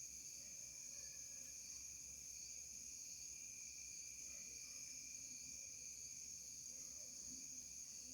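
Faint steady high-pitched whine over low background noise, with no motor running and no clear events.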